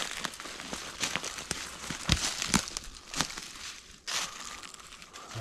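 Dry leaves, twigs and vines crackling and rustling as someone pushes on foot through dense undergrowth, with a few sharper snaps around the middle.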